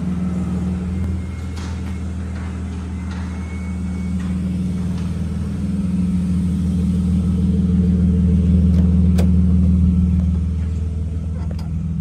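Car engine running with a steady low rumble that swells a little about six seconds in and eases near the end; a single sharp click comes about nine seconds in.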